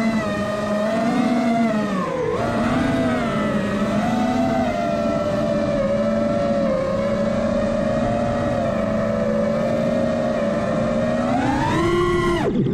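Electric motors and propellers of a radio-controlled aircraft in flight, a steady whine whose pitch rises and falls with the throttle; it dips about two seconds in, then climbs steeply near the end and drops off sharply.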